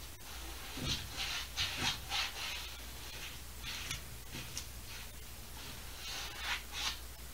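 Paintbrush scrubbing paint onto a stretched canvas: a series of short, quick rubbing strokes, several in a row about a second in and again near the end.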